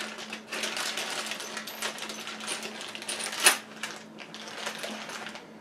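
Plastic-bagged small scooter parts crinkling and clicking as they are handled and lifted out of a cardboard box. One sharp click about three and a half seconds in is the loudest sound.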